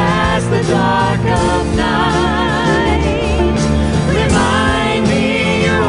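Live worship song: women's voices singing held notes with vibrato into microphones, backed by a band with piano, guitar and drum kit.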